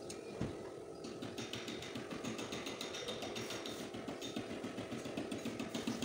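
Hose-fed pneumatic tool rattling against the car's rear body sheet metal, a fast, even run of impacts, as the old back panel is worked off.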